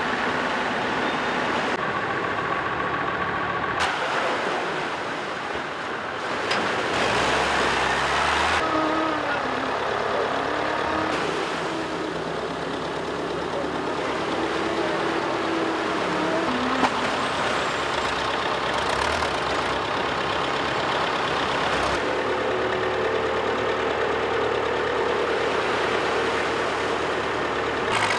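Boat outboard motors and the engines of launch vehicles running amid splashing surf, the engine note rising and falling in places and changing abruptly several times.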